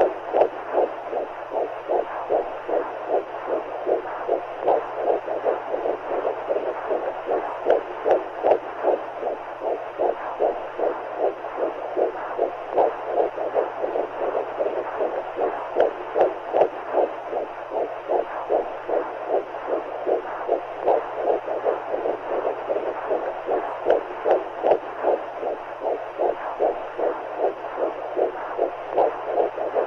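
Womb sound for soothing a baby: a steady whooshing of fluid with a regular heartbeat pulsing through it, and a faint low hum under it.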